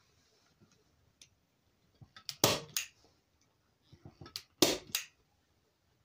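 Hand staple gun driving staples through fabric into a headboard: two sharp snaps about two and a half seconds in and two more near the five-second mark, each pair led by a few lighter clicks.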